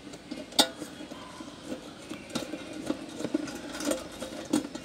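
Clicks and taps of metal and plastic parts being handled inside the opened body of a Hanabishi HHRC-14FS rice cooker as its internals are fitted back together, the loudest a sharp click about half a second in.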